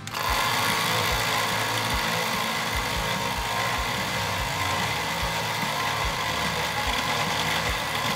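DC motor driving a 3D-printed worm gear through a timing belt, starting abruptly and then running steadily. The worm gear assembly makes a loud metal noise that the builder finds a little concerning.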